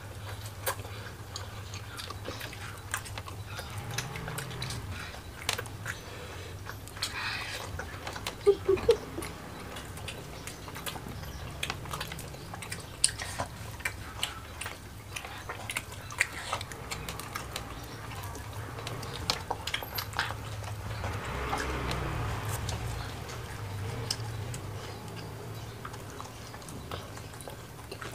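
Close-miked eating sounds: chewing, lip smacks and scattered sharp clicks as roasted chicken and rice are eaten by hand. There is a cluster of louder clicks about eight to nine seconds in, over a low steady hum.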